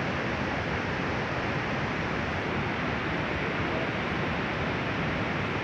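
Steady rushing roar of an avalanche's snow and debris flowing down the slope into the river, an even noise with no separate impacts.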